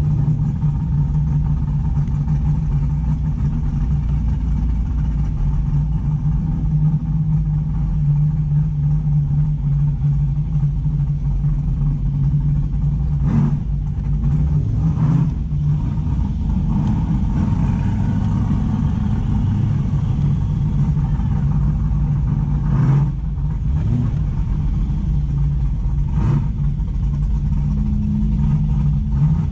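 1994 Ford Mustang GT's 5.0-litre V8 running steadily at cruising speed, a continuous low engine drone with road noise. A few short knocks come through along the way.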